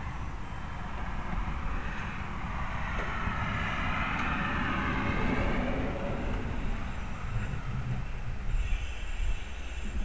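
A vehicle going past: a rumbling hiss that swells to a peak about four to five seconds in and fades again.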